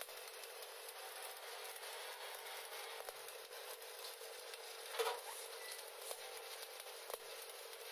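Stick (SMAW) welding arc crackling and sizzling steadily as a bead is run around a 10-inch pipe flange joint, with a louder pop about five seconds in.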